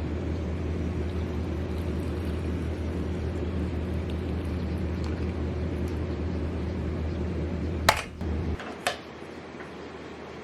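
A machine's steady low hum, which cuts off about eight and a half seconds in. There is a sharp click just before it stops and another shortly after.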